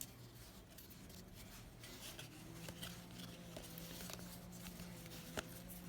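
Faint rubbing and sliding of trading cards being flipped through by hand, with a few light clicks, over a steady low hum.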